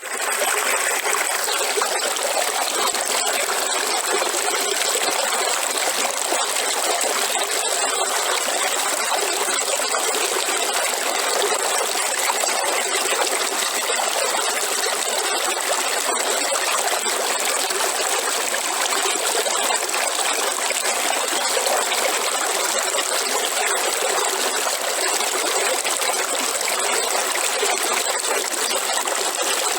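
River water running in a steady, unbroken rush of trickling and splashing, with little deep rumble.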